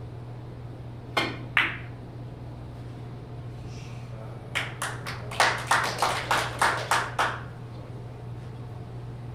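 Carom billiard balls clicking: the cue tip strikes the cue ball and it knocks into another ball about a second in. A few seconds later, spectators clap for about three seconds at roughly four claps a second, over a steady low hum in the hall.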